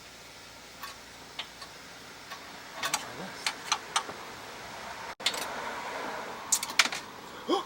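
Scattered light clicks and taps of small metal carburetor parts being handled and fitted back together, with a louder cluster of sharp clicks a little before the end.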